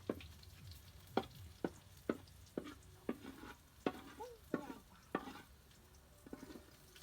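A cooking utensil striking and scraping in a pan in irregular clacks, about two a second, over a faint sizzle of food frying as it is stirred.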